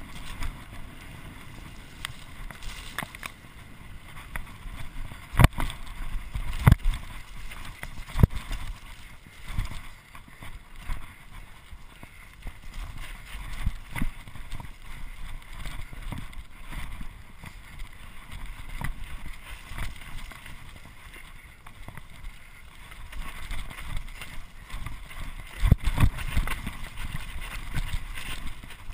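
Mountain bike descending a rough, wet trail at speed: a steady rush of wind on the microphone with the bike rattling, broken by sharp knocks as the wheels hit bumps, a few of them near the start and a cluster near the end.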